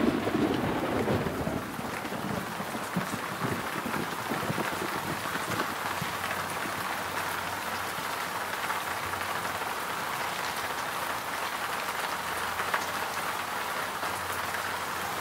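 Steady rain falling, heaviest in the first two seconds with a low rumble, then settling to an even patter.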